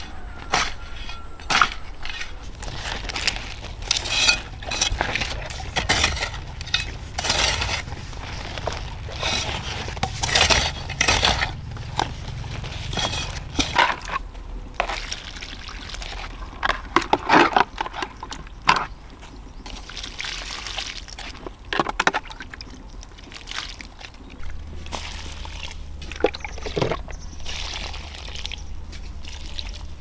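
Water sloshing and pouring, mixed with irregular knocks and handling noises.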